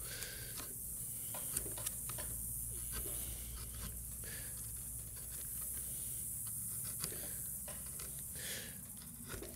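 Carving gouge pushed by hand through pine, giving quiet slicing and scraping strokes and small clicks as chips break away, over a low steady hum.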